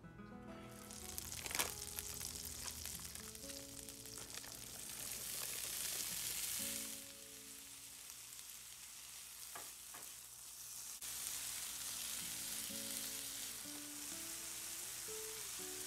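Butter and corn kernels frying in a nonstick frying pan: a steady sizzle, with a sharp crack about a second and a half in and a few lighter clicks later on. Soft music plays underneath.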